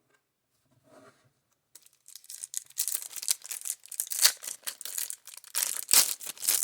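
Baseball trading cards being handled, giving a dense crinkly rustling full of quick slides and flicks that starts about two seconds in and carries on.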